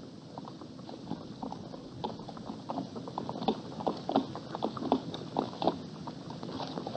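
Hooves of laden pack animals walking on hard, dry ground: an uneven clip-clop of hoofbeats that grows louder about two seconds in.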